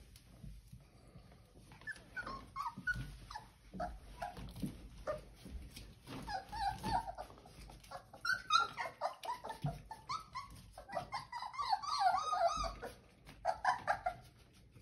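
Four-week-old Old English Sheepdog puppies whimpering and yipping in short high cries, with a busy stretch in the second half. Light clicks and scuffles run underneath.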